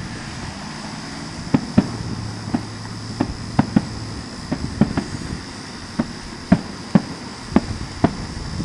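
Distant fireworks finale: an irregular string of sharp bangs, about two a second, over a steady high hiss, recorded on a phone microphone.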